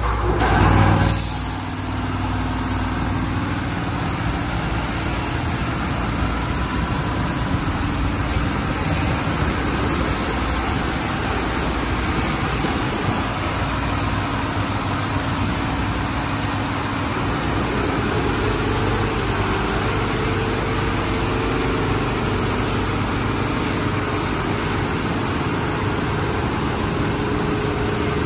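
MacNeil/PECO car wash tunnel equipment running: a steady hiss of water and foam spraying onto a car, with spinning wrap-around cloth brushes and a machine hum underneath. A brief louder whoosh comes about a second in, and a steady hum tone joins in past the middle.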